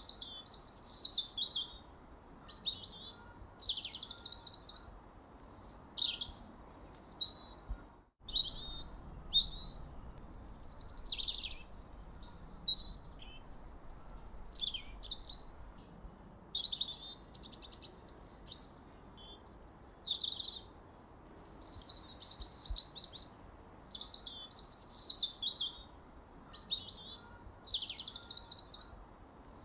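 Birdsong: a steady run of short, quick chirping and trilling phrases, high in pitch, with a brief gap in all sound about eight seconds in.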